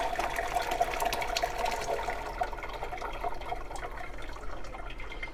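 Hot curds and whey poured from a stainless steel pot into a cheesecloth-lined strainer: a steady stream of liquid splashing into the cloth, tapering off over the last couple of seconds as the pot empties.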